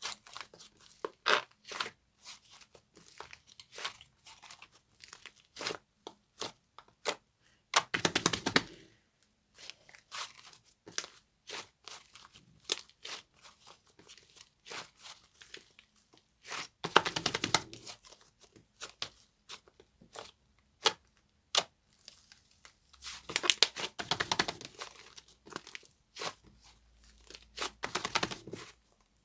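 Very hard white slime being pressed, stretched and torn by hand, giving sharp crackling clicks and pops, with several denser bursts of crackle.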